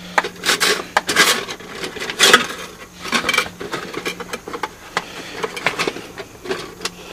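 Handling and rummaging noises: irregular rubbing and scraping against wood, with a few clicks and knocks and no steady rhythm, under a faint steady hum.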